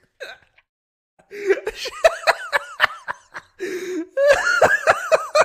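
A man laughing hard in quick, high-pitched bursts, starting about a second and a half in, breaking off briefly near the four-second mark and then carrying on.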